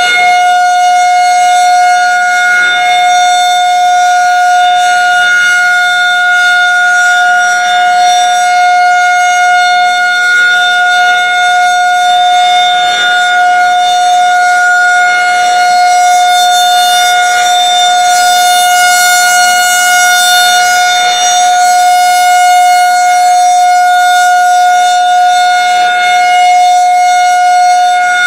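Federal Signal 2001 rotating electromechanical outdoor warning siren sounding a steady single-tone alert signal, held at one constant pitch with its horn turning on the pole.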